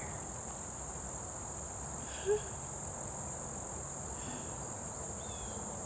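Insects, crickets or similar, trilling in a steady high-pitched chorus. A single short low note sounds about two seconds in.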